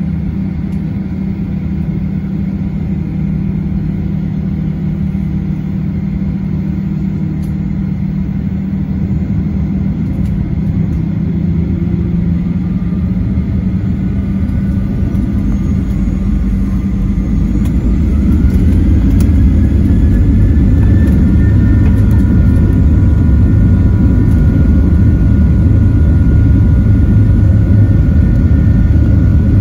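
Boeing 737-800's CFM56-7B turbofan engines heard from inside the cabin: a steady idle hum at first, then about halfway through a whine rising in pitch as the engines spool up, and the rumble grows louder and holds as takeoff thrust is set for the takeoff roll.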